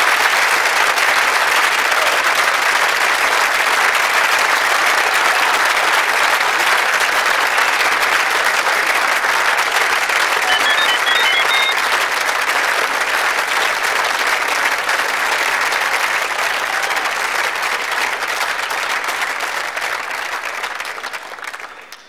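Audience applauding, a dense, steady clapping that fades out over the last couple of seconds.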